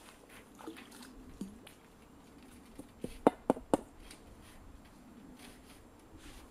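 Water sloshing and dripping as hands work in the shallows at a lake's edge. About halfway through come three quick, sharp clicks in a row, the loudest sounds here.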